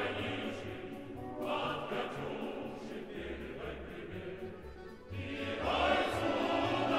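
Choral music: voices singing held, sustained chords, dropping softer in the middle and swelling back up about five seconds in.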